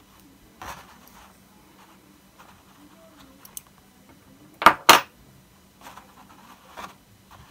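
Small handling sounds on a tabletop: a snip of scissors trimming the yarn tail of a crocheted flower less than a second in, then two sharp knocks in quick succession about two-thirds through, the loudest sounds, and a few faint taps after.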